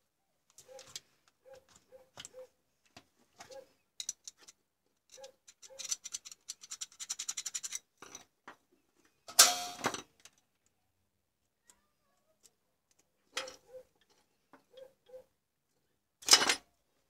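Handling noise at a workbench: small clicks and taps as a CFL bulb's ballast circuit board, its wires and tools are picked up and moved, with a quick run of ticking partway through and two louder bumps, one about halfway and one near the end.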